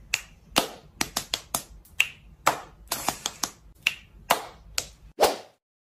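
Finger snaps: about fifteen quick, sharp snaps in an uneven rhythm, ending with a longer swish a little over five seconds in.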